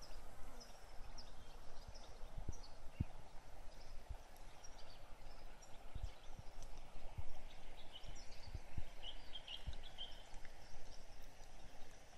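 Outdoor woodland ambience with small birds chirping in the trees, many short high calls scattered through and a busier burst of chirps about nine seconds in, over irregular low thumps as the phone is carried along on foot.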